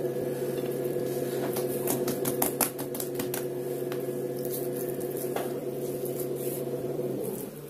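A steady machine hum made of several low fixed tones, which cuts off about seven seconds in. Over it, light clicks and taps cluster between about one and a half and three and a half seconds in, with one more near five seconds, from hands working dough on a silicone baking mat.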